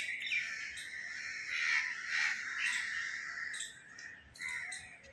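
Crows cawing, several calls overlapping, dying down about four seconds in.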